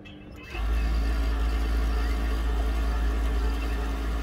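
Industrial overlock (serger) sewing machine starting about half a second in and running steadily at speed, stitching an edge with a strong low motor hum.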